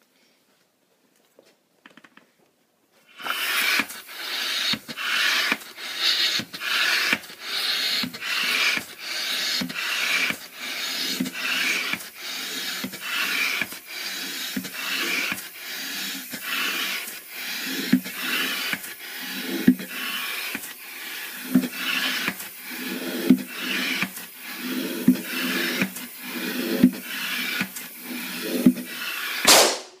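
Hand-operated floor air pump inflating a balloon. Starting about three seconds in, it gives a steady series of airy hissing strokes, about one and a half a second. From about halfway on, each stroke also carries a low pitched note as the balloon fills.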